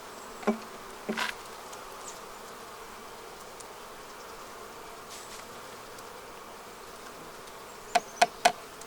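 Honeybees buzzing in a steady hum around an opened hive. A few sharp knocks from handling come about half a second and a second in, and a quick run of three or four knocks near the end.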